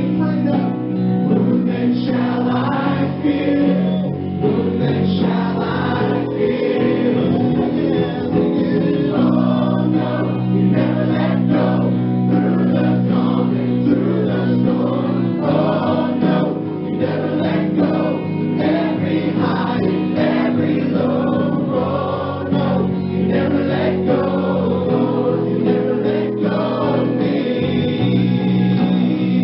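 Christian gospel music with a choir singing over sustained instruments.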